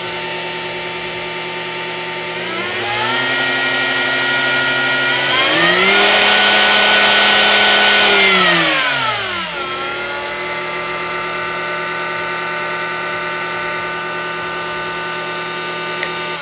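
Porter Cable 892 router motor spinning as a CNC spindle under SuperPID speed control, running steadily and really quiet at about 5,000 RPM. About two and a half seconds in, it spins up in two steps to about 12,000 RPM and gets louder. It holds there for a few seconds, then winds back down to about 5,000 RPM and runs steadily again.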